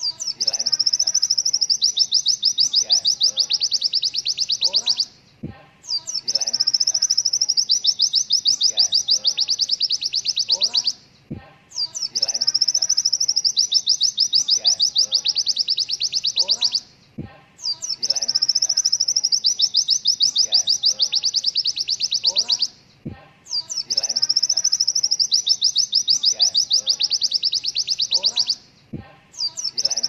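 White-eye (pleci) song: the rapid, high 'tembakan' (shooting) trill used as a tutoring track for young birds, given in bouts of about five seconds. The bouts repeat roughly every six seconds with short pauses, and a faint click falls in each pause.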